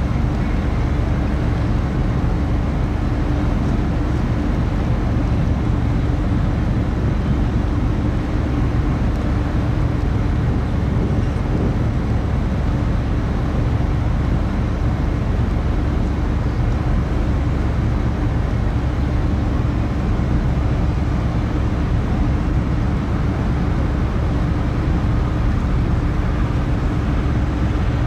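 Car ferry's engines running steadily, heard on board as a deep, even rumble with a steady hum.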